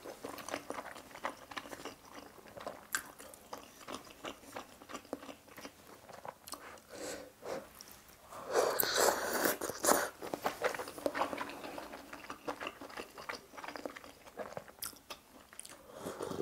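Close-up wet chewing and lip-smacking of budae-jjigae sausage and ramen noodles. About eight seconds in comes a long slurp of noodles lasting about two seconds, and near the end a sip of broth from a bowl.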